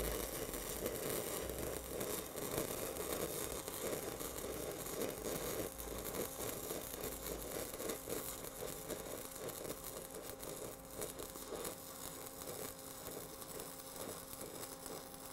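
Stick welding arc of a 6010 electrode on steel pipe: a steady crackle and sputter of the arc. The rod is being run too fast and whipped far too much, a deliberate travel-speed and technique error.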